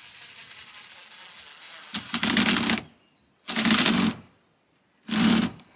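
Cordless impact driver driving screws into the wooden roof trim overhead: a steady motor whir for about two seconds, then three short bursts of rapid hammering about a second and a half apart.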